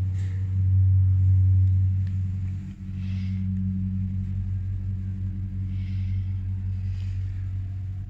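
Hydraulic elevator with a Leistritz Hydraulik power unit running as the car travels between floors: a steady low hum with a few overtones. It is strongest for the first couple of seconds, dips briefly a little under three seconds in, then carries on slightly quieter.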